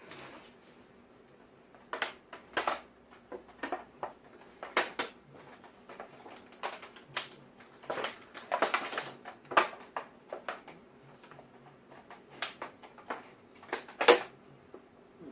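Plastic clamshell packaging crackling and clicking while wire cutters snip the ties holding a vinyl figure in it. The clicks come irregularly, with the loudest snap near the end.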